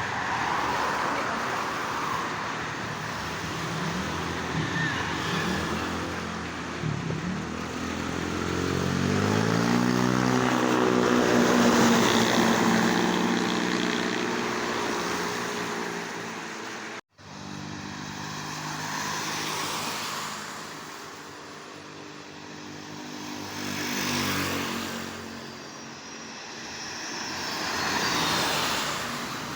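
Tour buses driving past, their engine noise swelling and fading as each goes by; about ten seconds in, one bus's engine climbs steadily in pitch as it accelerates. The sound drops out abruptly for a moment about 17 seconds in, then more buses pass, the loudest near the end.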